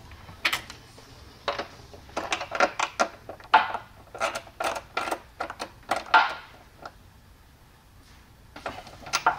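Speaker wires and connectors being handled and fitted to terminals inside a wooden subwoofer enclosure: a run of irregular clicks, rattles and knocks. They are busiest in the first six seconds, with a few more near the end.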